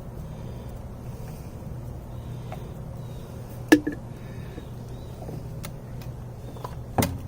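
A few sharp clicks and knocks from handling the PVC cement can and the pipe fittings while cement is brushed on, the loudest about four seconds in and another near the end, over a steady low hum.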